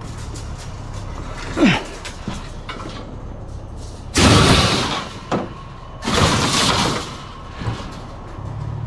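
Bulky scrap metal being handled and shoved into place: a short falling squeak early, then two loud scraping, clattering bursts of about a second each, at roughly four and six seconds in, with small knocks between.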